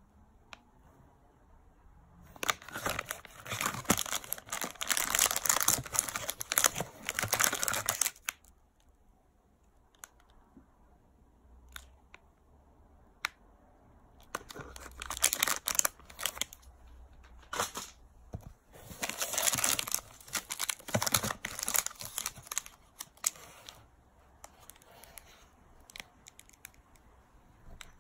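Plastic candy wrappers crinkling and rustling as packets are handled in a cardboard box, in three spells with a few light clicks between.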